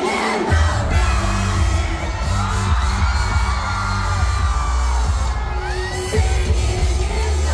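K-pop dance-pop song playing loud over a concert sound system, a woman singing over it and a heavy bass beat coming in about half a second in. Fans whoop and scream along.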